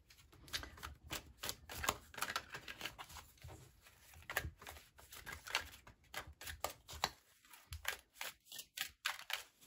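A deck of tarot cards shuffled by hand: an irregular run of quick soft clicks and slaps as cards are slid and dropped from one hand to the other.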